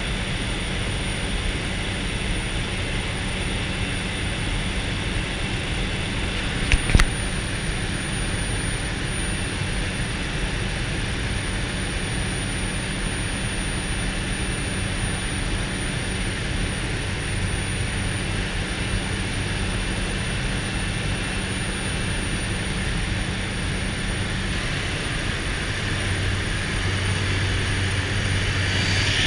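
de Havilland DHC-3 Otter turboprop's engine and propeller heard from inside the cabin while climbing after takeoff: a steady drone with a thin high tone over it. A brief sharp click comes about seven seconds in, and the drone grows slightly louder near the end.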